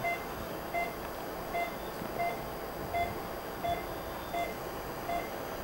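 Steady electronic beeping from a patient monitor: a short beep at the same pitch about every three quarters of a second, the regular pulse beep keeping time with the patient's heartbeat, over a faint room hiss.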